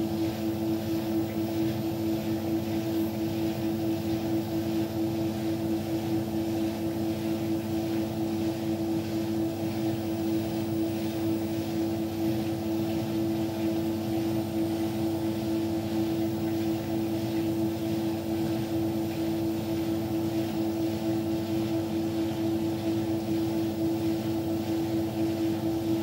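Beko WTK104121W washing machine spinning its empty drum at a steady fast speed in an intermediate spin of the drum-clean program. The motor gives a steady, unchanging whine over the drum's running noise.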